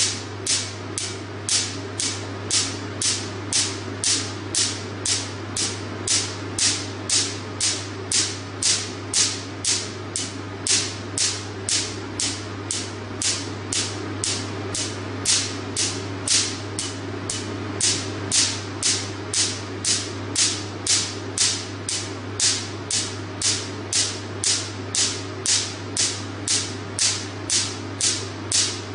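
Picosecond Nd:YAG laser pulses snapping sharply on carbon cream spread on skin, a crisp regular crackle at about two pops a second as the carbon layer is blasted off during a carbon-peel treatment. A steady low hum runs underneath.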